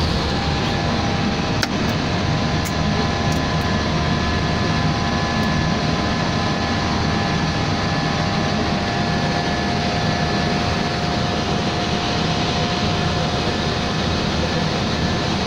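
Steady rush of airflow and air conditioning inside an Airbus A320 cockpit in the climb, over a low hum, with a couple of faint steady whining tones. A few light clicks come about two to three seconds in.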